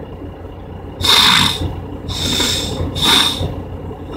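Three short, hissy breaths close to the microphone, about a second apart, over a steady low hum.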